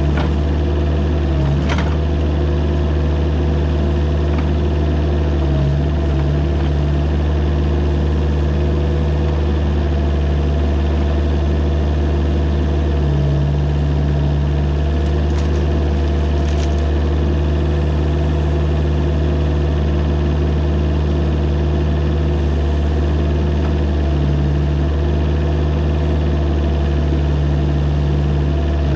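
Mini excavator engine running steadily, its note shifting slightly a few times.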